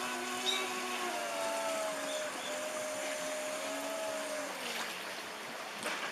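Several car horns sounding together in long, steady blasts, set off on their own as the cars are caught in tsunami floodwater, over a steady rushing noise; the horns die away about four and a half seconds in.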